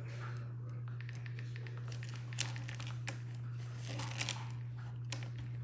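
Light rustling and crinkling with several sharp clicks in the middle of the stretch, over a steady low hum.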